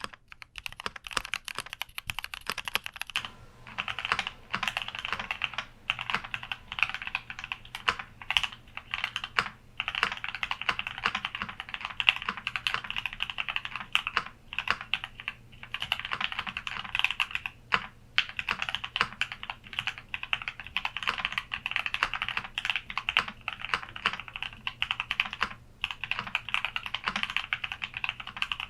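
Fast, continuous typing on a Keychron Q60 mechanical keyboard: a dense stream of key clacks, with short pauses between bursts.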